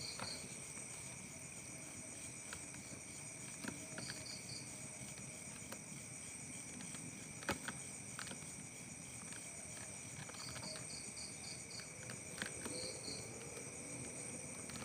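Night insect chorus: crickets trilling steadily at several pitches, with short runs of chirps from another insect now and then and a few faint clicks.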